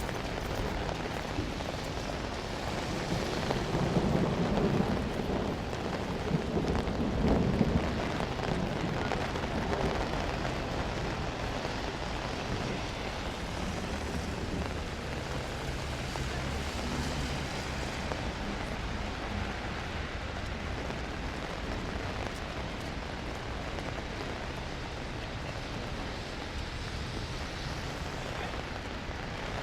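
Steady rain falling, with a low rumble of thunder swelling between about three and eight seconds in.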